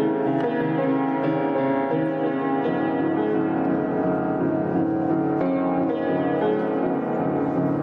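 Piano playing slow, sustained chords that change every second or two.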